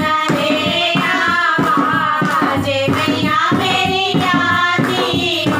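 Women's voices singing a Hindi devi geet (devotional folk song to the goddess) together, with hand clapping keeping the beat.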